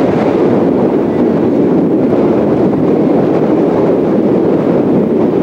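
Wind buffeting the camera microphone: a steady, dense rumble with no distinct events.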